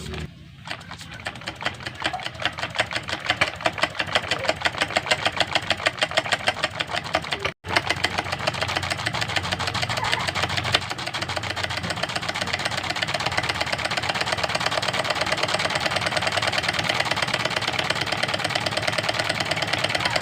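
Homemade small steam engine running, its strokes making a fast, even ticking beat that speeds up over the first few seconds, with a momentary drop-out about seven and a half seconds in before running steadily on.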